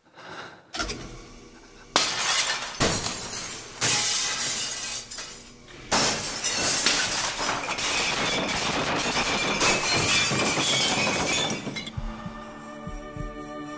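Glass bottles crashing and shattering in a series of sudden bursts, then a long, loud cascade of breaking glass starting about six seconds in. Near the end this gives way to a low droning music bed with soft low thuds.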